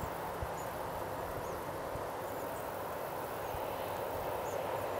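Boeing 737-800's CFM56-7B jet engines running at low taxi power, heard across the airfield as a steady rushing hum. Faint high chirps come and go above it, with occasional low thumps.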